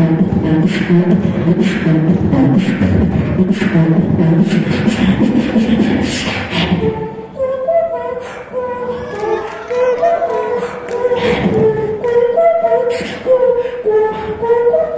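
A man beatboxing into a microphone over a PA: dense bass and snare-like beats. About halfway through, a vocal melody line comes in over the continuing beat.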